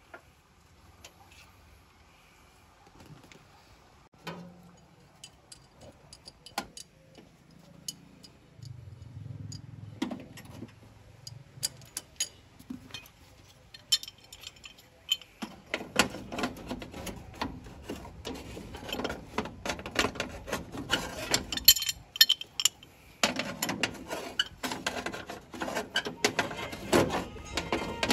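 Metal clicking and clattering of hand tools and small metal parts while a Fiat 480 tractor's dashboard is taken apart. At first there are scattered taps and clicks. About halfway through it turns into dense, busy clattering, with a brief pause.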